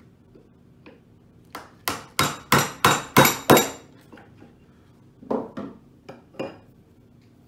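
Yellow-faced mallet striking a chisel to chop a mortise in wood: about seven sharp blows, roughly three a second. A few lighter knocks follow about two seconds later.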